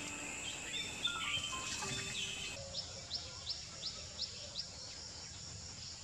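Soft background music with held notes, which breaks off about two and a half seconds in. A plain flowerpecker then gives a series of about six short, high calls, roughly three a second.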